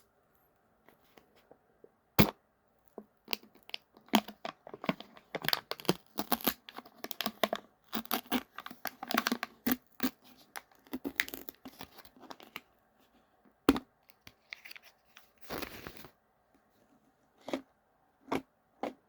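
A Pringles can being opened: a sharp click, then a long run of crackly tearing and crinkling as its foil seal is peeled off, with a few more clicks and a rustle near the end.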